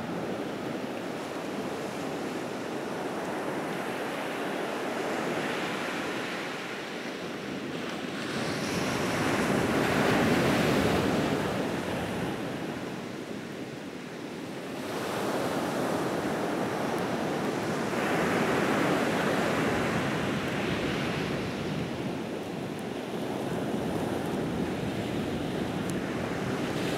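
Atlantic surf breaking on a sandy beach: a steady wash of waves that swells into louder breakers about ten seconds in and again around twenty seconds.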